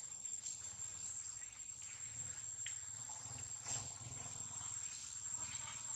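Insects in the surrounding forest keeping up a steady, unbroken high-pitched trill.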